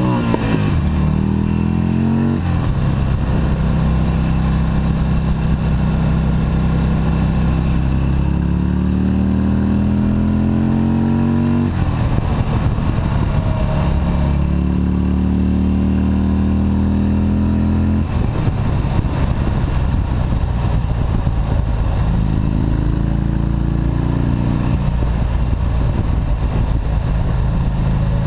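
Buell motorcycle engine pulling hard through the gears over wind noise. Its pitch climbs steadily and drops sharply at each upshift: a few seconds in, near the middle, and about two-thirds through.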